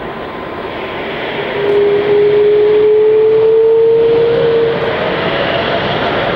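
Airbus A330-300 jet engines, Rolls-Royce Trent 700 turbofans, running as the airliner rolls onto the runway: a steady jet noise that grows louder about two seconds in, with a strong whine slowly rising in pitch, and a second, higher whine taking over near the end.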